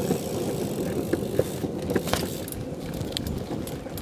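BMX bike being ridden: a steady rolling rumble of tyres on a hard surface, with a few sharp clicks and knocks from the bike.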